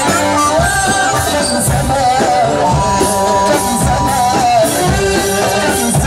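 Loud live Arabic party music through PA speakers: a melody full of trills and turns over a steady drum beat, with a man singing into a microphone.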